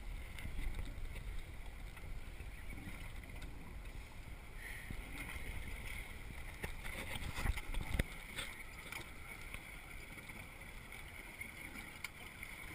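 Wind on the microphone and sea water against a small fishing boat, with a steady hiss that comes in about four and a half seconds in. A couple of knocks sound around seven to eight seconds in.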